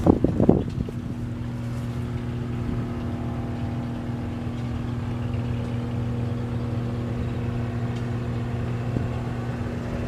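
An engine running at a steady idle, a constant low hum that does not change, with a short burst of louder noise in the first second.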